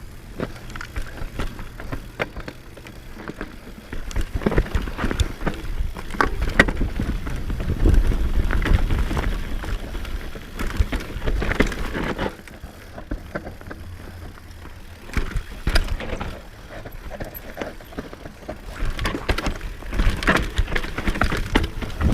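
Enduro motorcycle being ridden over rough dirt track: the engine runs under changing throttle, with clatter and knocks from the bike over the terrain. It gets louder for a long stretch in the middle and again near the end.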